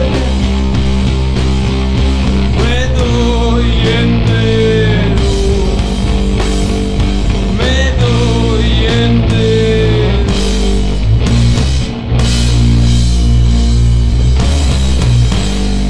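Rock band playing with drum kit and cymbals and electric guitar. A voice sings a wavering line twice, around three and eight seconds in. The band briefly drops out near twelve seconds, then comes back in full.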